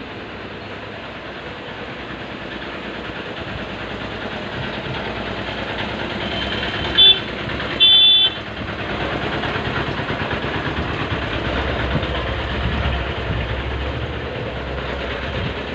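Steady vehicle engine noise of passing traffic, with two short high-pitched honks about seven and eight seconds in and a deeper engine rumble a few seconds later.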